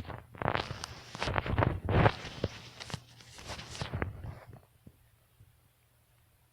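A person's stomach gurgling in a run of irregular bursts, stopping about four and a half seconds in.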